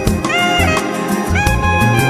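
Swing-jazz background music: a horn melody with scooped, held notes over a moving bass line and a steady beat.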